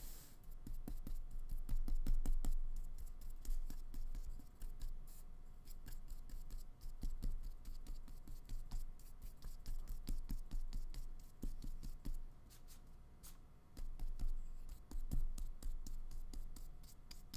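A paintbrush working paint on paper: bristles scraping through paint on the palette, then brushing and dabbing on the painting in many short, irregular scratchy strokes.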